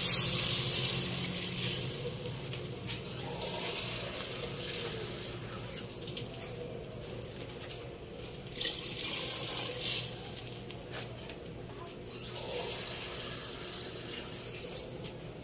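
Water poured into a cooking pot of sautéed chicken and splashing in, loudest at the start, with two shorter pours later on.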